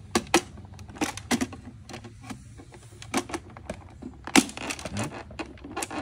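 Sharp plastic clicks and knocks as the bottom cover of an iRobot Roomba S9+ robot vacuum is pressed and snapped back into place. There are about eight or nine separate clicks, irregularly spaced, and the loudest comes about four and a half seconds in.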